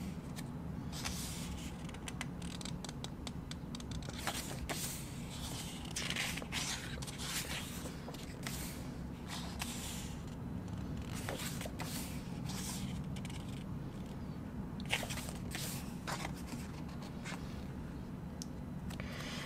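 Pages of a glossy photobook being turned and smoothed by hand: irregular soft paper swishes and rustles over a steady low hum.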